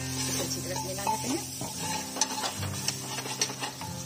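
Wooden spatula stirring and scraping spiced vegetables around a pressure cooker pot, with repeated knocks and scrapes over the sizzle of frying. Soft background music with held tones plays underneath.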